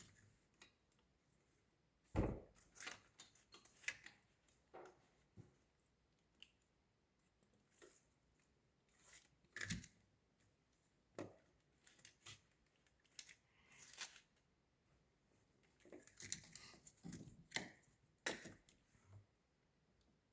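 Scattered light clicks and knocks of hand tools and metal brackets or piping being handled, with the sharpest knock about two seconds in, another near ten seconds, and a cluster of clicks near the end.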